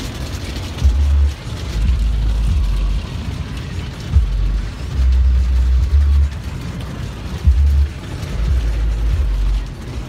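Bass-heavy music heard inside a car, its deep bass notes starting and stopping every second or so, over a steady hiss of car wash water spray on the car's body.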